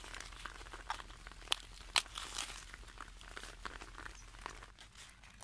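Crisp, frilly green leaf lettuce leaves rustling and crinkling as a hand moves through them, with irregular small crackles and two louder crackles about one and a half and two seconds in.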